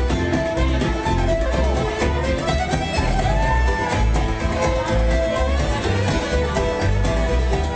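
Live acoustic session: a fiddle and a plucked mandolin-family instrument playing a tune together, with guitar backing.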